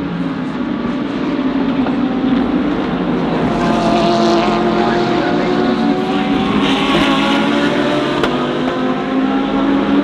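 GT3 race cars' engines running at speed on a circuit, several engine notes at once, slowly shifting in pitch. They grow louder a few seconds in and ease off slightly near the end.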